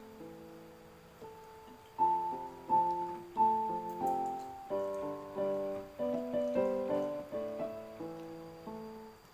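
Background piano music: a melody of struck notes over chords, soft at first and louder from about two seconds in.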